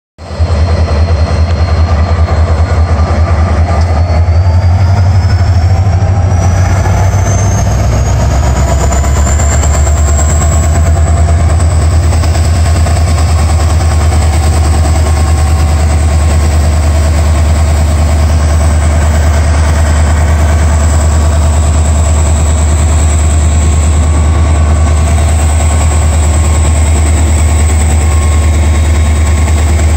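EMD diesel-electric locomotive idling at standstill, mainly the lead GT26CW-2's 16-cylinder EMD 16-645E3C engine, with a loud, steady deep rumble. About four seconds in, a thin high whine rises in pitch and then holds steady.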